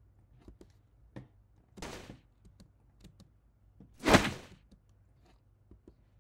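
Scattered computer mouse and keyboard clicks, with two short noisy bursts from played-back audio, the second, about four seconds in, much louder.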